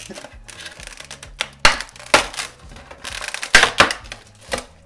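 Thin clear plastic blister tray being flexed and pried open in the hands, crackling, with several sharp snaps.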